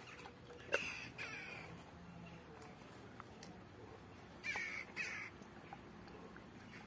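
A bird calling in two short pairs of falling calls, about a second in and again around five seconds in. Faint clicks of a dog gnawing a raw pork bone are heard between the calls.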